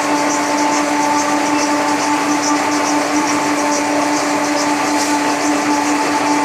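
Heater collar making machine running steadily: a constant motor hum with a regular high metallic ticking, about three a second, from its turning rollers.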